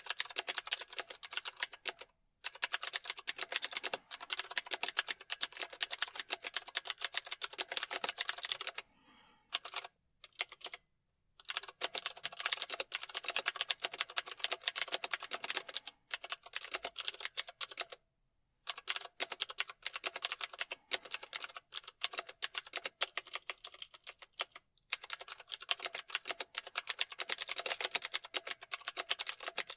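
Typing on a computer keyboard: a rapid, dense stream of key clicks in long runs, stopping briefly a handful of times, the longest gap a little after a third of the way in.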